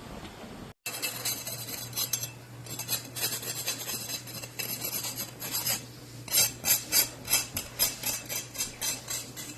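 Repeated scraping strokes, regular at about two a second in the second half, over a steady low hum.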